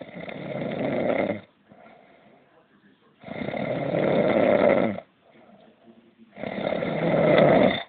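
A sleeping man snoring: three long snores about three seconds apart, each growing louder as it goes, with softer breathing sounds between them.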